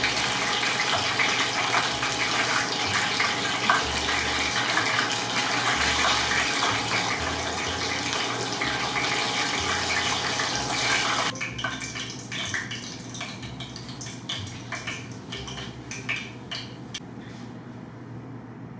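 Hot oil sizzling and crackling from freshly deep-fried karaage chicken. A dense sizzle drops abruptly about eleven seconds in to sparser crackles that fade away.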